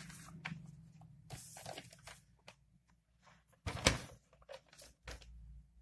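Paper sheet rustling faintly as it is handled, in short scattered crinkles, with one sharper crinkle a little under four seconds in.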